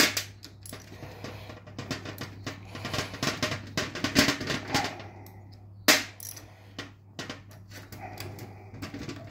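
Metal clicks and clatter as the shaft and top flange of a Peerless 1000 right-angle gearbox are turned and worked loose by hand. There is a busier patch of rattling in the middle and one sharp knock about six seconds in.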